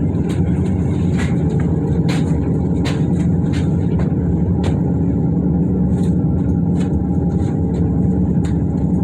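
Steady low rumble and hum inside an aerial tramway cabin as it travels along its cables, with scattered faint clicks.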